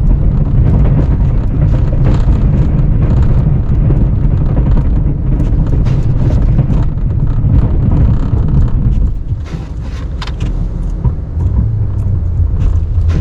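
Plow truck running under load through snow, a heavy low rumble with scattered knocks and clunks; it eases off about nine seconds in.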